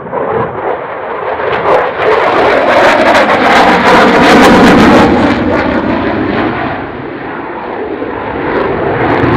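Jet noise of a Dassault Rafale's twin M88 turbofans as the fighter passes. It builds to its loudest about three to five seconds in, with a pitch that falls as it goes by, eases, then swells again near the end.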